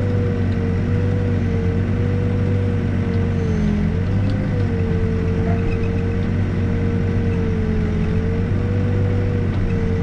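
Backhoe's diesel engine and hydraulics running steadily while digging, with a whine that wavers slightly in pitch over a low engine drone.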